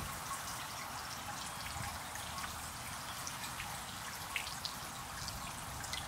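Small garden water fountain splashing steadily, with scattered ticks of droplets falling through the steady patter.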